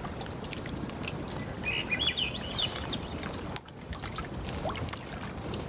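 Small waves lapping against a lakeshore, with a songbird calling a short run of high notes that rise and fall quickly, about two seconds in.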